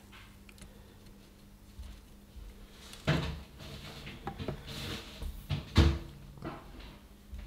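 A few knocks and clatters of handling on a workbench, over a steady low hum. The loudest knock comes about three seconds in, with another sharp one near six seconds.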